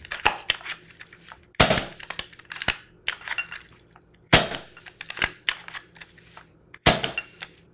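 Nelspot 007 pump-action paintball marker being pumped and fired on compressed air: three sharp shots about two and a half seconds apart, with the clack of the pump stroke between them. The rebuilt marker cycles without leaking.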